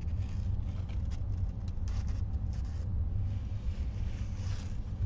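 Stiff cross stitch canvas rustling and scraping in the hand as it is held and shifted, in short irregular scratches, over a steady low background hum.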